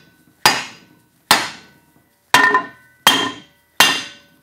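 Mallet striking a bent aluminium bracket clamped in a bench vise, five blows a little under a second apart, each with a short metallic ring, as the piece is shaped to fit the fender's curve.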